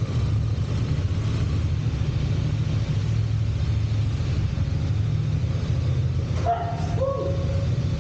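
Motorcycle engine idling with a steady low rumble. Two short voice-like sounds come about six and a half seconds in.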